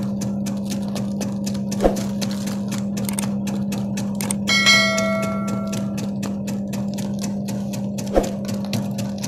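Cassava chip slicing machine running, its motor a steady hum under a fast run of ticks, with two sharp knocks, one about two seconds in and one near the end. About halfway a bright bell-like chime rings out, the sound effect of a subscribe-button animation.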